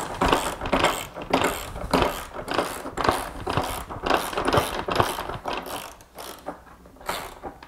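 Hand ratchet wrench clicking in short back-and-forth strokes as it drives a hex-head screw through a caster's mounting plate into plywood. The clicking stops about six seconds in.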